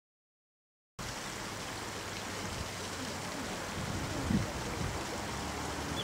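Flowing river water, a steady rushing hiss that starts suddenly about a second in, with a soft low thump a few seconds later.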